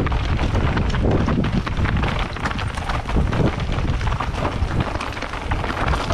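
Mountain bike riding over a rocky trail: tyres on rock and gravel with a dense run of rattling knocks from the bike, over wind rumbling on the microphone.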